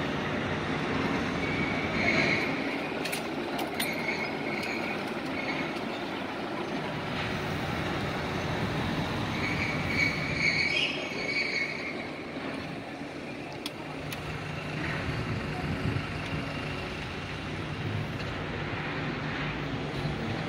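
Steady city street and traffic noise, with a brief high squeal about two seconds in and a longer one about ten seconds in.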